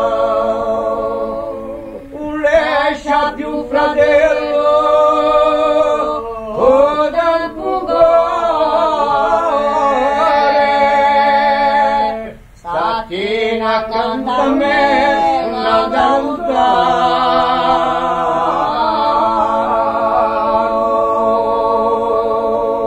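Corsican song sung by male voices in close harmony, with long held chords under an ornamented, wavering lead line. There are brief breath breaks about two seconds in and about halfway through.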